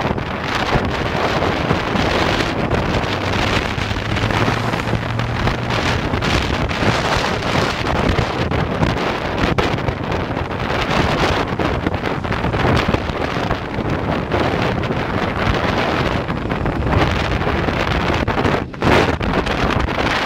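Wind buffeting the microphone of a camera carried on a moving motor scooter, a steady rush of noise with the engine and road noise underneath.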